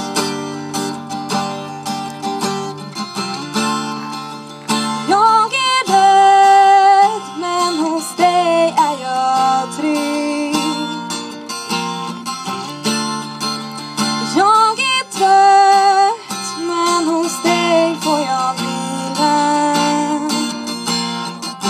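A girl singing a slow melody into a microphone, holding long notes with vibrato, over a boy's steadily strummed acoustic guitar.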